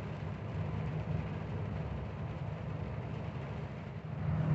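Truck engine running steadily as heard inside the cab while driving, a low drone under an even hiss of tyres on the wet road.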